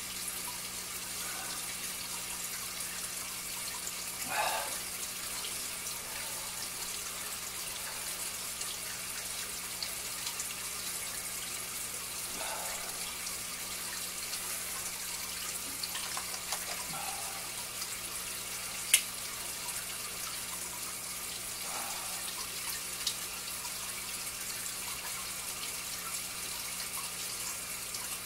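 Water dripping slowly from a drip-acclimation line of airline tubing into a plastic tub of water: a soft drip every four or five seconds over a steady faint hiss. A sharp click sounds once, about nineteen seconds in.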